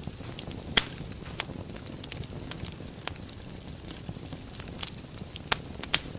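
Wood fire burning in a fireplace: a steady low rumble and hiss of flames with sharp crackles and pops, the loudest about a second in and a cluster of three near the end.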